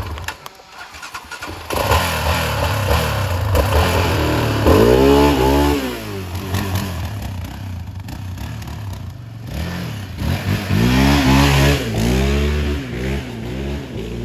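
Sport ATV engine revving hard twice, about five and eleven seconds in, each time in a run of quick rising revs as the quad accelerates, with the engine running at lower revs in between.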